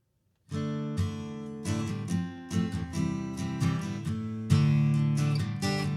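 Acoustic guitar strummed, starting suddenly about half a second in after a brief silence, playing chords as the opening of a song.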